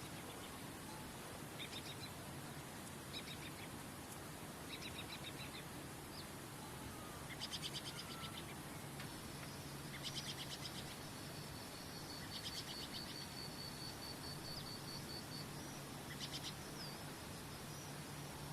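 Songbirds calling in short trills every second or two over a steady rush of flowing water, with one long, high, even trill through the middle.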